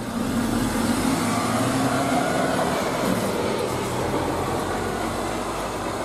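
Diesel engine of a truck-mounted concrete boom pump running steadily as the truck drives slowly past.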